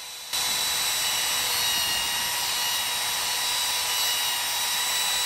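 Compact trim router running at speed while routing mortises into a wooden rail, a loud steady high whine that comes in abruptly just after the start. The router is so close to the camera's microphone that it overloads the recording.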